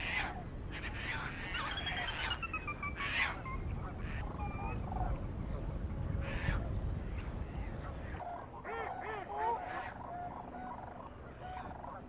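A mix of wild waterbird calls, with Canada geese honking most clearly in the second half and a descending run of high, thin notes about two seconds in. A low, steady noise like wind runs under the calls until about two-thirds of the way through, then drops away.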